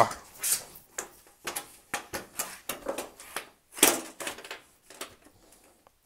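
Thin sheet-metal duct seam being worked together by hand: a string of irregular metallic clicks, scrapes and snaps as the pre-bent edges of 7-inch round rigid duct are pushed to slide into each other.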